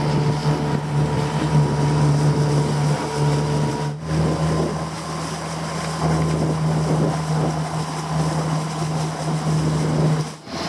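Outboard motor driving an inflatable dinghy at speed, running at a steady pitch, with water rushing past the hull and wind on the microphone. The sound breaks off for a moment about four seconds in and again near the end.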